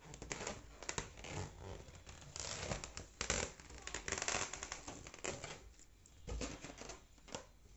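Scratchy rubbing and soft tapping as a baby's hands push and pat a latex balloon, with bursts of friction noise and sharp little clicks, busiest in the middle and thinning out near the end.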